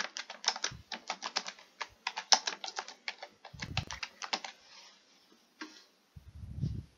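Typing on a computer keyboard: a quick run of keystrokes for about four and a half seconds, then a few scattered clicks.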